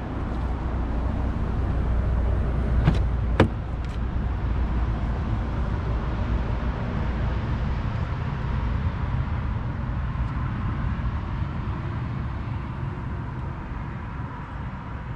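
Rear door of an Audi e-tron GT being opened: two sharp latch clicks about three seconds in, half a second apart. Under them runs a steady low rumble.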